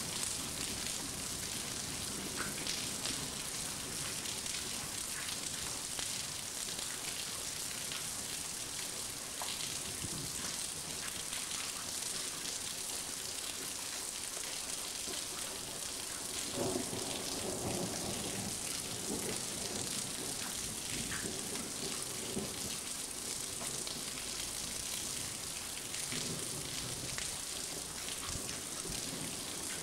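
Heavy thunderstorm rain falling steadily: an even hiss with scattered ticks of drops.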